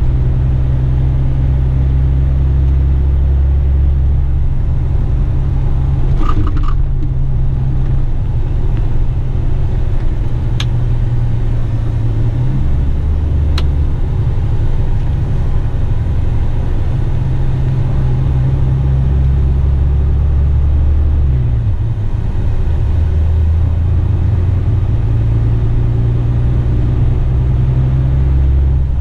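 Western Star dump truck's diesel engine running as the truck drives, heard from inside the cab: a loud low drone whose pitch shifts a few times, with two faint clicks in the middle.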